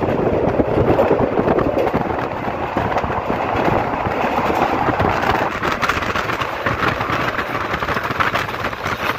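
Passenger train running at speed, heard beside an open window: a continuous dense rumble and rattle with rushing air.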